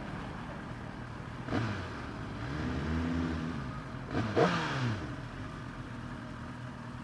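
Kawasaki ZX-10R inline-four engine idling, with a quick throttle blip about a second and a half in, a slower rev up and back down around three seconds, and a sharper, louder rev a little past the middle as the bike moves off.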